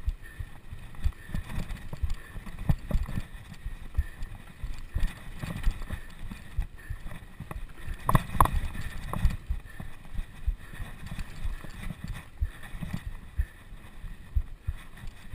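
Wind and road noise from a bicycle ride, with irregular knocks and rattles and a short run of sharper clicks about eight seconds in.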